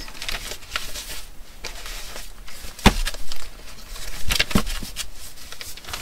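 Paper pages of a journal being turned and shuffled by hand, rustling, with a few sharp knocks as the book is handled; the sharpest knock comes about halfway through.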